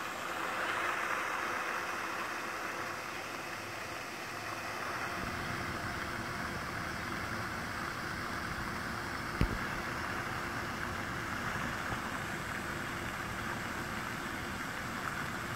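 Small quadcopter drone's propellers giving a steady buzzing hum while it hovers and flies. A low rushing noise joins about five seconds in, and there is a single sharp knock about nine seconds in.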